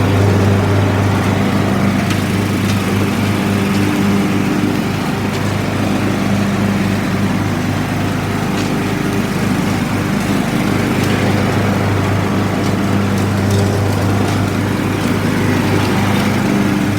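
Troy-Bilt riding lawn mower's 17.5 hp engine running steadily on a newly fitted carburetor.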